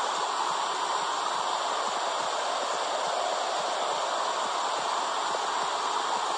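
Womb sound for soothing babies: a steady, unbroken whooshing noise.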